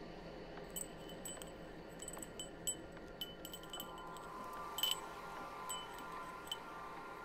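Wind chimes tinkling in scattered light strikes, over a faint ambient electronic drone whose held tones swell in about halfway.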